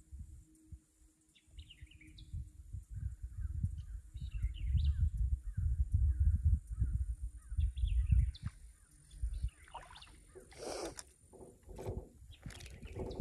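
Small birds chirping repeatedly over a loud, irregular low rumble on the microphone. Near the end there is a short rushing swish and a few sharp clicks as a spinning rod is swung back to cast.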